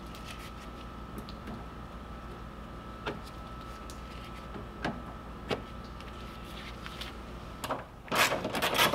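A few sparse sharp clicks as plastic push-pin body clips are pried out of a plastic radiator cover, over a steady faint hum. Near the end, a burst of louder plastic clatter and handling noise.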